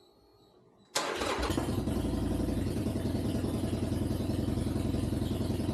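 Harley-Davidson Iron 883's air-cooled V-twin engine, fitted with new spark plugs, comes in suddenly about a second in and then runs steadily.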